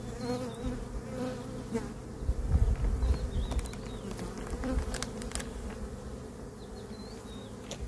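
Honeybees buzzing around an open hive: a steady hum of many bees in flight. A low rumble comes about two seconds in, and several sharp clicks come in the middle.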